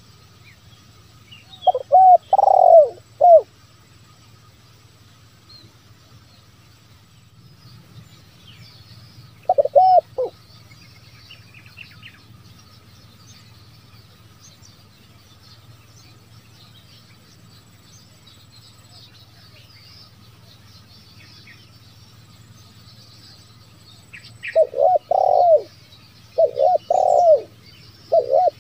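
Spotted dove cooing: a phrase of a few coos about two seconds in, one short phrase near ten seconds, then a run of three coo phrases near the end. Faint chirps of small birds sound in between.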